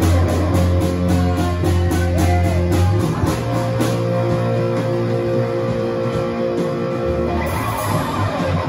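Live rock band playing: electric guitar holding long notes over bass guitar and a drum kit, with steady drum hits that thin out about three seconds in.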